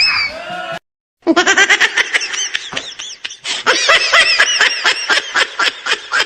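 A rising whistle-like glide ends in the first moment. After a short silence, rapid high-pitched laughter runs on, in quick arching bursts, as a comedy sound effect.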